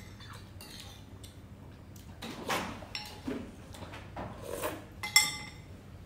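Mouth sounds of eating and sipping from a spoon, with a spoon clinking sharply once against a glass bowl about five seconds in.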